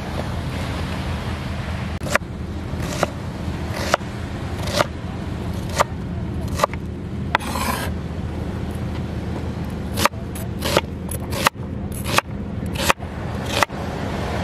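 Kitchen knife cutting onions on a chopping board. Single sharp knocks come about once a second, then a quicker run of cuts in the last few seconds, over a steady low rumble.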